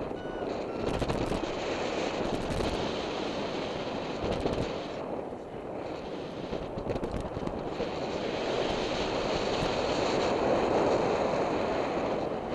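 Airflow rushing over the microphone of a camera on a paraglider's risers in flight, a steady hiss that swells near the end, with a few sharp clicks from the camera mount. In the first second a variometer's pitched beeps fade out.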